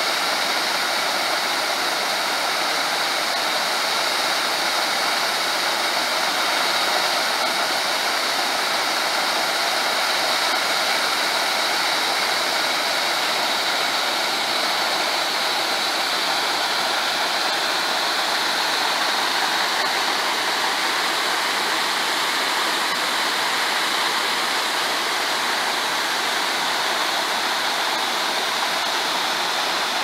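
Düden Waterfall's several falls pouring into their pool: a steady, unbroken rush of falling water.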